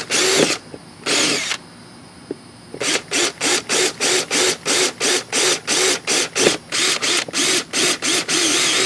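Cordless drill boring holes into a fiberglass boat transom, the trigger pulsed so the motor whirs up and down. Two longer runs at the start, then a short pause, then steady short bursts about three a second.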